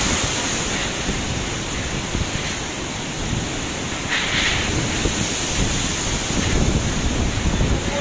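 Strong typhoon wind buffeting the microphone over heavy storm waves breaking in the harbour, as a steady loud rush of noise. A brief louder hiss comes about four seconds in.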